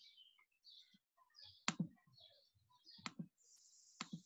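Three sharp computer-mouse clicks, each a quick double press-and-release, coming about a second and a half and then a second apart, over faint hiss.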